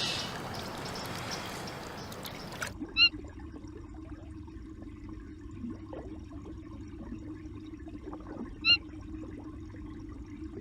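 Water rushing and bubbling, which cuts off about two and a half seconds in, then a steady underwater hum with two short, high squeaky chirps about six seconds apart: manatee calls.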